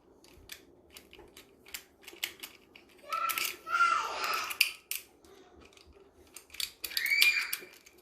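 Small metallic clicks and rattles of a lever door handle's latch mechanism as the handle is worked downward, the direction that fails because its top pins are bent. A child's voice breaks in twice, loudest about three seconds in and again near the end.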